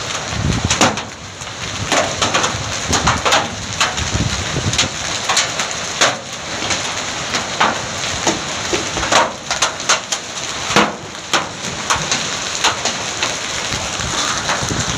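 Heavy hailstorm: hailstones striking the road and surroundings in a dense, irregular clatter of sharp impacts over a steady hiss of falling hail and rain.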